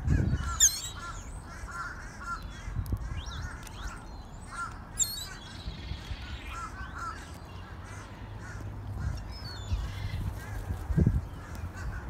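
A flock of gulls calling: many short, repeated calls that overlap one another, with some sharper, higher calls mixed in. There are low bumps near the start and again about eleven seconds in.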